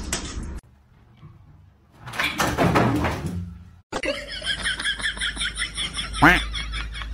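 People's voices and laughter, quick repeated bursts, with a sharp rising-and-falling cry about six seconds in; a loud burst of noise comes before it, from about two to four seconds in.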